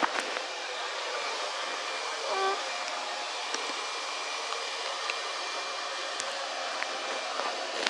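Electric fan running: a steady, even whoosh of air noise with no pitch to it.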